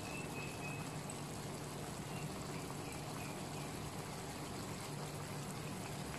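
Thick prawn masala gravy simmering in a pan over a gas flame: a steady, faint bubbling hiss with a low hum underneath.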